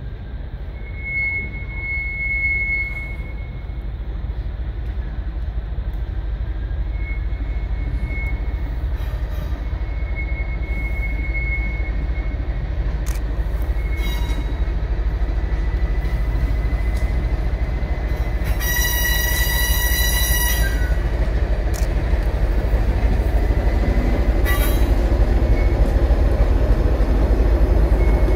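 English Electric Class 20 diesel locomotive running as it hauls cement tank wagons slowly past, its engine sound growing louder as it nears. Faint high-pitched wheel squeal comes and goes, with a louder high-pitched burst lasting about two seconds around two-thirds of the way through.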